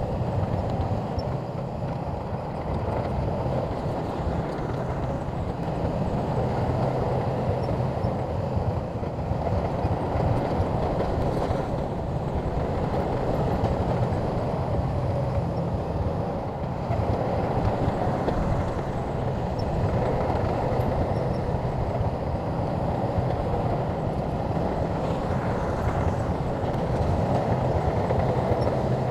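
SHANTUI crawler bulldozer's diesel engine running steadily as it works, with the rumble and clatter of its tracks, swelling and easing a little over time.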